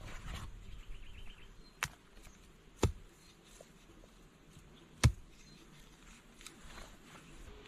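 Three sharp knocks, the first two about a second apart and the last and loudest about two seconds later, with a short run of quick high insect chirps underneath.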